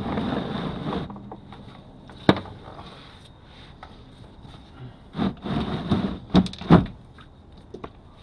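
Knocks, scrapes and a sharp click of metal parts and tools being handled during work on a transmission pan. A brief rushing scrape comes at the start, a single click about two seconds in, and a run of loud clunks and scrapes near the end.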